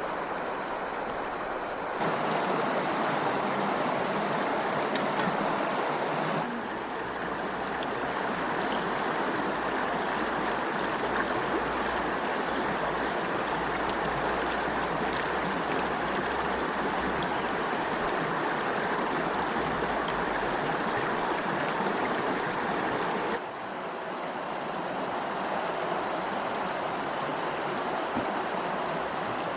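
Stream water rushing over rocks in a steady flow. The sound jumps in level and tone at cuts about 2, 6 and 23 seconds in.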